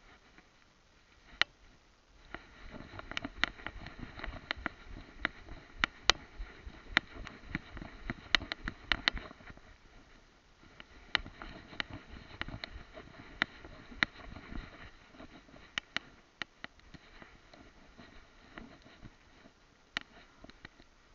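A dog wearing a head-mounted camera moves and sniffs through grass: rustling, with irregular sharp clicks and knocks from the camera and harness as it moves, busiest in the first half and sparser later.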